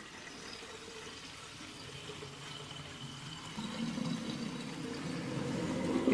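Watery sloshing and bubbling, slowly getting louder.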